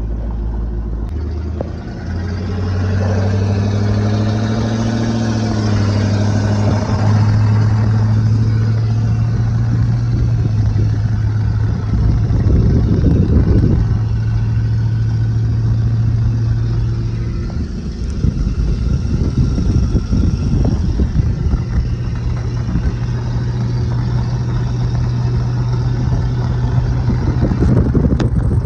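1972 Chevrolet C10 pickup's engine accelerating, rising in pitch over the first few seconds, then cruising steadily, heard from the open truck bed with road and wind noise. About two-thirds of the way in the engine eases off briefly, then pulls again.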